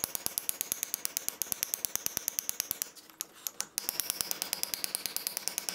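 Hammer tapping rapidly on a wooden dowel, about seven light taps a second, driving a rust-seized piston out of a drum brake wheel cylinder clamped in a vise. The tapping breaks off briefly about three seconds in, then resumes.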